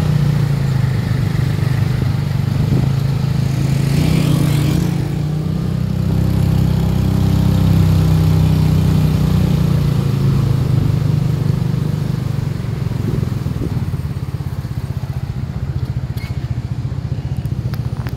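Motorcycle taxi's engine running steadily, heard from the pillion seat with road and wind noise. A brief rushing noise comes about four seconds in, and the engine runs a little quieter and more pulsing over the last few seconds.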